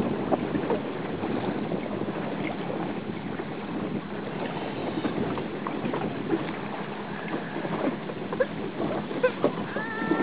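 Wind buffeting the microphone at sea: a steady rushing noise with scattered small knocks and crackles.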